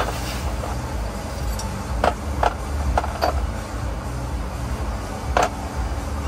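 A few sharp metallic clinks of hand tools and parts being handled: four in quick succession about two to three seconds in and one more near the end, over a steady low rumble.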